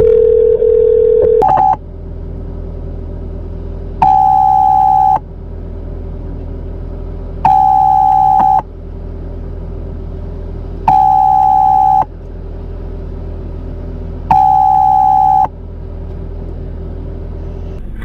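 Telephone line tones while a call to a clinic is transferred to the front desk: a steady tone for about a second and a half, then four loud electronic beeps about a second long, repeating every three and a half seconds. A steady low hum runs underneath.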